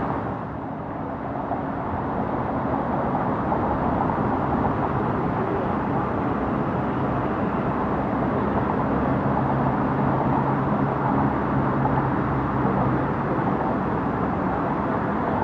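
Steady road traffic noise, vehicles passing with a low engine and tyre hum that swells and fades.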